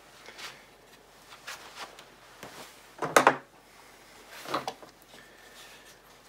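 A few knocks and clunks of metal rifle parts and the rifle being handled on a workbench during M1 disassembly, with one sharp knock about three seconds in and a smaller one about a second and a half later.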